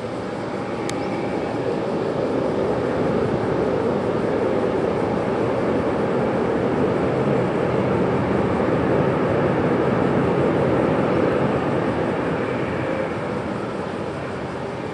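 Jet engines of a four-engine Airbus A340-600, its Rolls-Royce Trent 500s, as the airliner rolls along the runway: a steady dense rumble that grows louder, peaks past the middle and then eases off as the aircraft passes.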